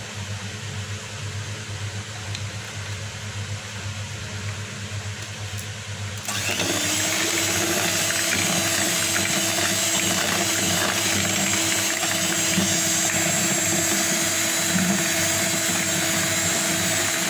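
Electric hand mixer switched on about six seconds in, its motor spinning up quickly and then running at a steady whine as the beaters whisk thin cake batter. Before it, only a steady low hum.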